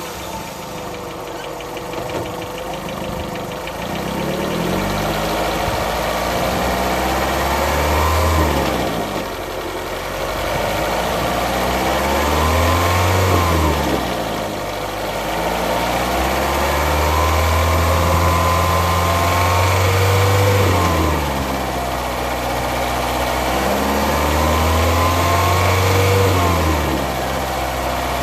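VW Golf 5's 1.4-litre 16-valve four-cylinder petrol engine (BCA) running, its pitch rising, holding and falling back to idle about four times as it is revved and let go, with a deep hum during each raised stretch. The owner is chasing an unidentified weird noise from the front wheels.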